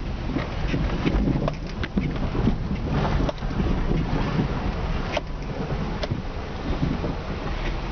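Inside a car driving slowly over a rough, washed-out dirt and gravel road: a steady low rumble of engine and tyres, with scattered sharp clicks throughout.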